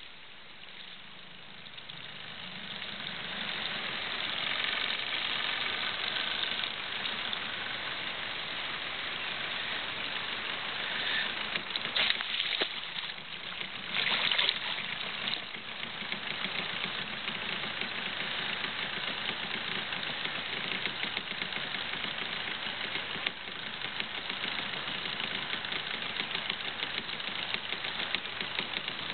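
A boat's outboard motor running steadily while a hooked salmon is played alongside. A few sudden splashes about twelve and fourteen seconds in come from the fish thrashing at the surface.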